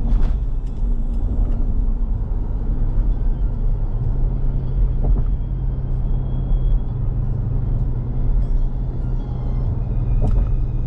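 Steady low rumble of engine and road noise inside a Toyota Fortuner's cabin at cruising speed, with a few brief knocks.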